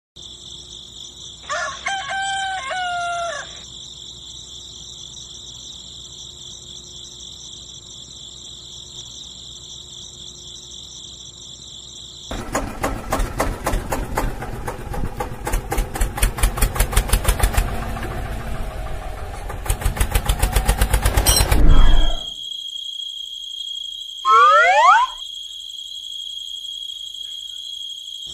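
A rooster crows once over a steady high insect chorus. About twelve seconds in comes a rapid, loud run of mechanical knocking that quickens and cuts off suddenly after about ten seconds, followed by a short gliding bird call.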